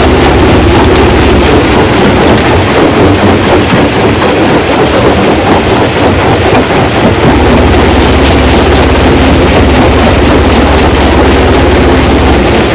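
Stone-crushing machinery running under load: a loud, steady heavy-engine drone with continuous rattling and grinding noise. The deepest part of the hum thins out for a few seconds in the middle, then comes back strongly.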